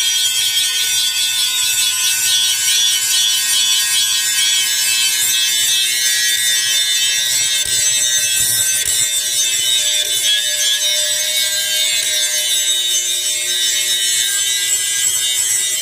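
Angle grinder grinding metal: a steady, high-pitched whine over a hiss that runs without a break.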